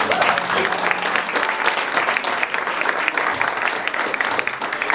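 Crowd applauding, many people clapping at a steady level.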